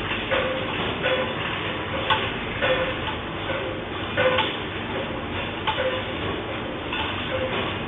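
Steady rumbling with repeated knocks and rattles every half second to a second: a building and loose objects shaking during an earthquake.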